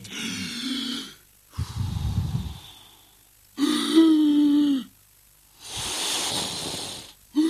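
A man huffing and puffing as if to blow a house down: a wheezy breath, a puff that rumbles on the microphone, a held strained note, then a long hissing blow.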